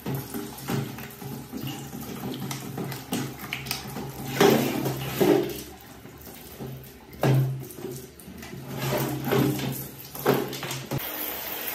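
A stream of water splashing onto a desktop PC case's steel panels and plastic front bezel while a hand scrubs and wipes the wet surfaces, with irregular louder splashes several times.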